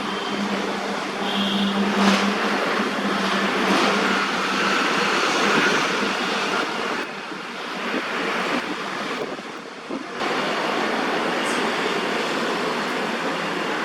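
Steady hiss of distant city road traffic, with a few brief drops in level partway through.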